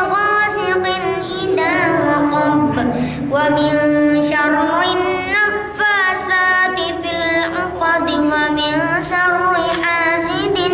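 A boy reciting the Qur'an in a melodic chanted style (tilawah) into a handheld microphone, in long ornamented phrases that bend and turn in pitch, with brief pauses for breath between them.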